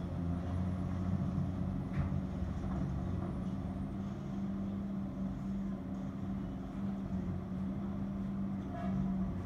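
Diesel engines of demolition excavators running steadily, with one sharp knock of breaking debris about two seconds in.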